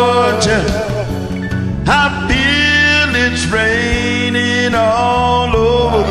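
Male singers holding long, wavering wordless notes, ad-libbing over a karaoke backing track with a steady bass line.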